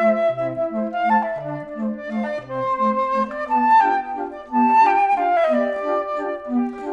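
Background music: a light woodwind melody, clarinet- or flute-like, over a bouncing bass line of short repeated notes.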